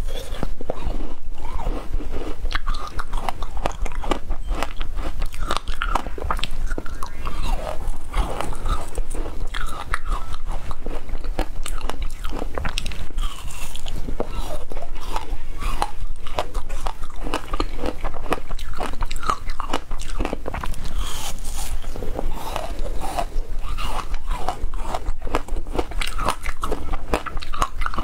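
Biting and chewing hard-frozen passion-fruit ice pieces: a dense, irregular run of crunches as the ice breaks between the teeth.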